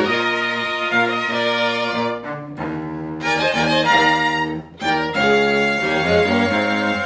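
Small string ensemble of violins and cello playing sustained bowed chords that change every second or so, with a short break a little before five seconds in.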